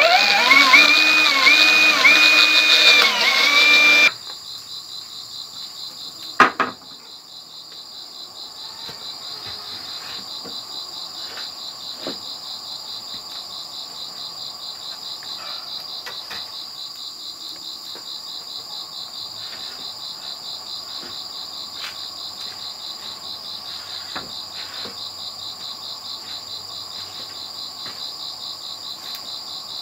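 A power drill whines under load for about four seconds as it drives a screw into a bamboo pole, then stops abruptly. After that, a single knock, then a steady, high-pitched, rapidly pulsing insect chorus.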